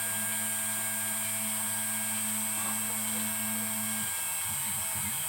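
Stepper motors of a homemade Arduino-controlled desktop CNC milling machine running, with a steady hum over a constant high whine. About four seconds in, the hum changes to a pitch that rises and falls over and over as the axes speed up and slow down.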